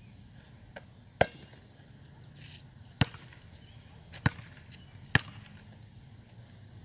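Basketball bouncing on an asphalt court: four sharp, single bounces at uneven gaps of one to two seconds, the loudest two about a second and three seconds in.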